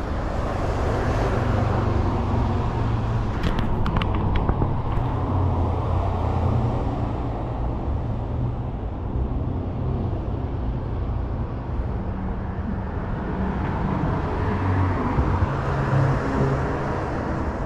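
Road traffic: cars driving along the street, a continuous rush of engine and tyre noise that rises and falls as vehicles pass. A few light clicks sound about four seconds in.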